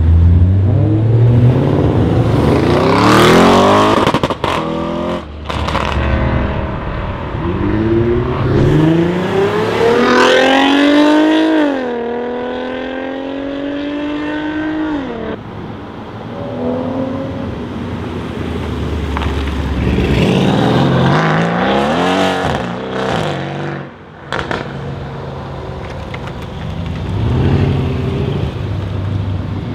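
Several V8 performance cars accelerating hard one after another, their engine notes rising steeply through the revs: an Audi RS6 Avant, then a Mercedes-AMG C63 coupé and a Mercedes-AMG ML63. In the middle one engine climbs to a high pitch, holds it for a few seconds, then drops.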